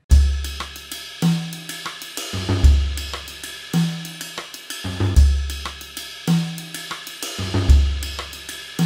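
Outro music with a drum-kit beat: a deep bass note about every second and a quarter, under steady hi-hat and cymbal ticks.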